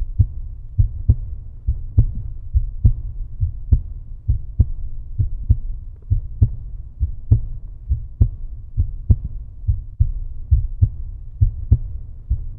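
Low, deep thumping beat in pairs, like a heartbeat, a little more than one beat a second over a steady low hum: an outro soundtrack, not a sound from the car or the work.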